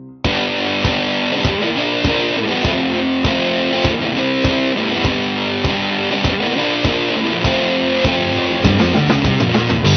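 Background music led by guitar over a steady beat, starting abruptly just after the opening.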